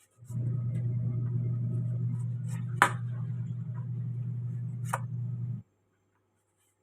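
A small electric motor runs with a steady hum for about five seconds, then cuts off suddenly. Two sharp clicks sound over it, near the middle and just before it stops.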